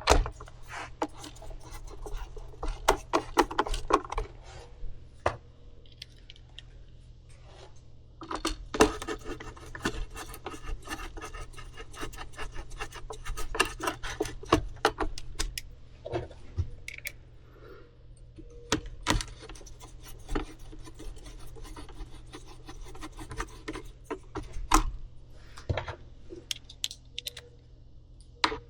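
Scattered clicks, taps and light rattling of hand tools and small parts against the plastic housing of a Stihl BG 65C leaf blower being put back together, over a faint steady low hum.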